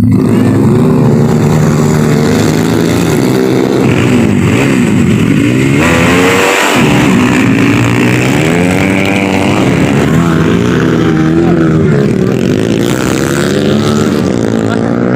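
Several motorcycle engines revving over and over, their pitches rising and falling and overlapping one another.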